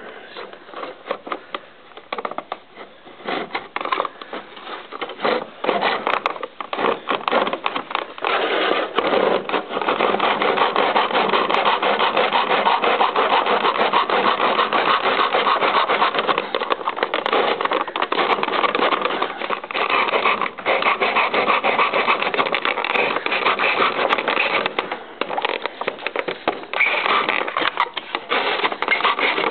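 Hand saw cutting wooden crown molding in a plastic miter box. Short, uneven strokes start the cut, then about eight seconds in it settles into steady back-and-forth sawing.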